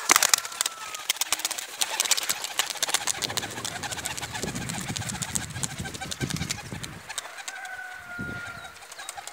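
White Van tumbler pigeon taking off, its wings clattering in a quick run of claps that thin out as it climbs away. A thin high whistled tone sounds twice, near the start and near the end.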